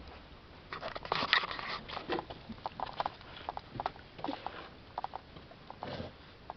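Irregular clicks and light knocks of hands and a tool working a tight oil filter loose on the back of a Ford Festiva engine.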